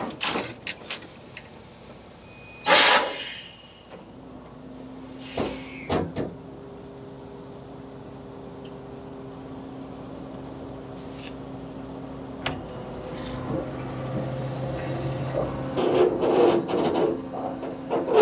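Diesel engine idling steadily, with scattered clunks and knocks and one short loud burst of noise about three seconds in; the running gets louder and rattlier near the end.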